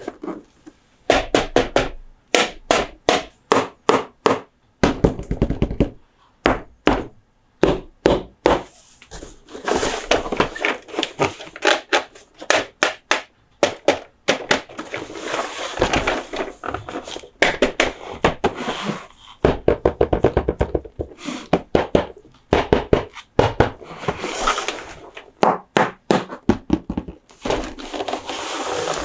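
Quick runs of taps and clicks from fingers on diecast toy monster trucks and their packaging, in clusters, with stretches of scratching and brushing between them.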